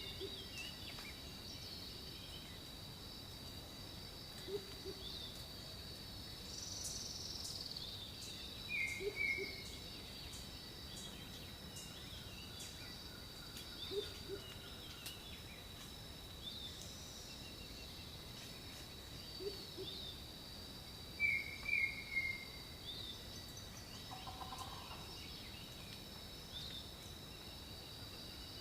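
Jungle ambience: a steady high insect drone under scattered bird calls, with a short low call repeating about every five seconds and bright chirps twice, the second pair the loudest.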